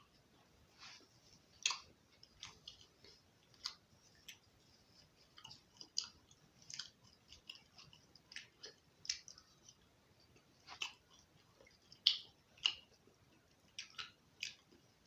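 Close-up eating sounds: a person chewing and biting roti and chicken curry, with wet clicks and smacks coming irregularly, about once or twice a second.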